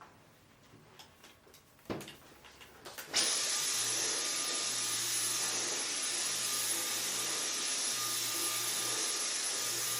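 Vacuum cleaner switched off, a couple of light knocks in the pause, then switched back on about three seconds in, its motor whine rising to speed and running steadily with a loud hiss.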